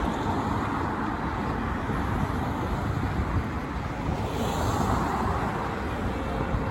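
Road traffic passing on a city street: a steady wash of engine and tyre noise.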